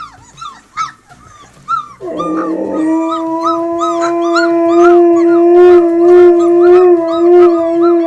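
Siberian husky howling: one long, steady howl that starts about two seconds in and is held to the end. Under and before it, a run of short, high whimpering cries from husky puppies, repeated a few times a second.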